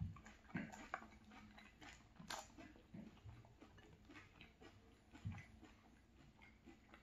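Faint chewing of milk-soaked cereal, with scattered soft clicks of a metal spoon scooping in a glass bowl.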